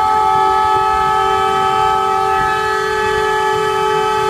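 A loud horn sounding one long, unbroken blast of two close notes together.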